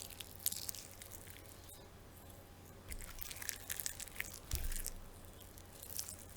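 Wet, slimy squelching and sticky crackling of a flesh sound effect, like soft meat being squeezed and chewed, coming in several uneven clusters of small wet clicks.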